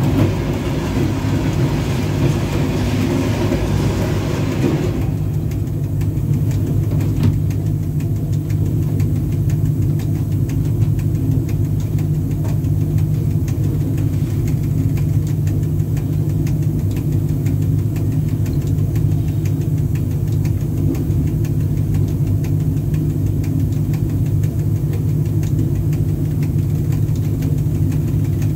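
Steady low rumble of a VL10U electric locomotive under way, heard in its cab, with faint regular ticks from the wheels on the track. For about the first five seconds a clatter and hiss from a line of gondola wagons on the next track goes by alongside, then stops suddenly.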